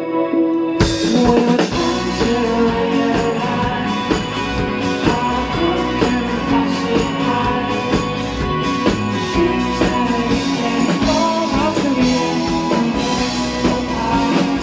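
A live rock band playing: a held keyboard chord, then about a second in the full band with drum kit, bass and guitars comes in and plays on.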